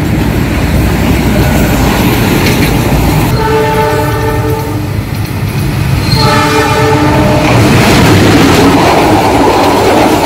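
Train horn blowing twice, each blast about one and a half to two seconds long, over the steady rumble of passing trains. Near the end, passenger coaches behind a CC 206 diesel-electric locomotive run past close by with wheel clatter, the loudest part.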